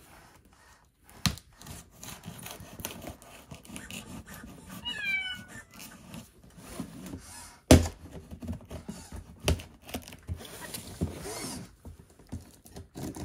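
A knife scraping and cutting the packing tape on a cardboard box, with irregular taps and rubbing. There is a loud thunk of the box on the wooden floor about eight seconds in, and smaller knocks after it. About five seconds in, a short falling meow comes from the MarsCat robot cat.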